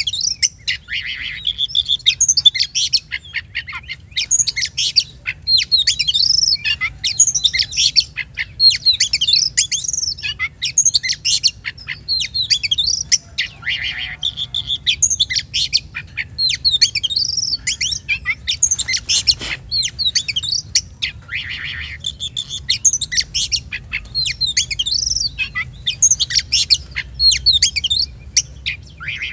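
Oriental magpie-robin (kacer) singing a fast, varied song of loud whistles, chirps and sweeping notes, nearly without pause.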